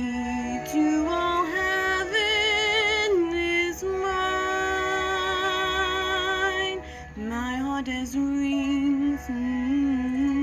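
Music: a female voice singing long held notes with vibrato over a backing track, with no clear words.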